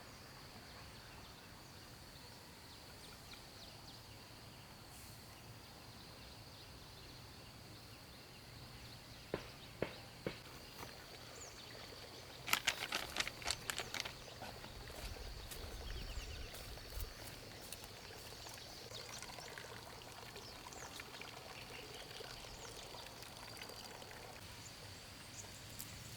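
Faint outdoor ambience with a steady high-pitched tone throughout. Three sharp knocks come about nine to ten seconds in, then a quick run of clicks and taps from about twelve to fourteen seconds, followed by a brief low rumble.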